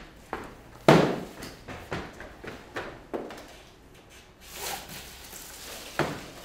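Cardboard boxes being handled and set down on the stage floor: a loud thump about a second in, a few lighter knocks, a brief rustle midway, and another thump near the end.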